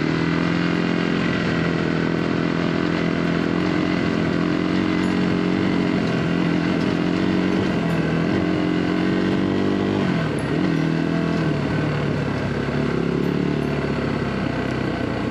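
Off-road vehicle engine running steadily under way, its pitch dropping about ten seconds in and climbing back.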